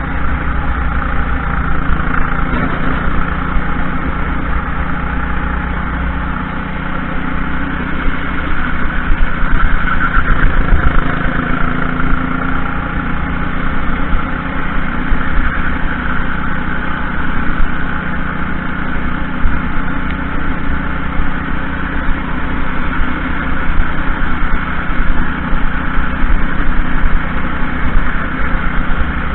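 Junior racing kart's engine running hard through a lap, heard from an onboard camera on the kart. Its note shifts up and down with the throttle through the corners and straights.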